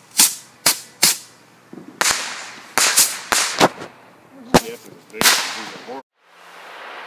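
Fireworks going off: about ten sharp cracks at uneven intervals, some in quick pairs. The sound cuts off suddenly about six seconds in, leaving a soft hiss.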